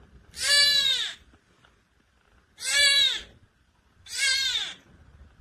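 A cat meowing loudly three times, each meow about two-thirds of a second long, rising then falling in pitch.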